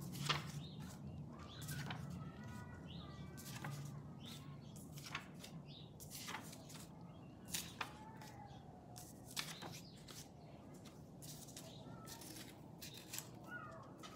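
Paper picture cards being picked up off a cloth-covered table and stacked by hand: scattered soft taps, clicks and slides of card.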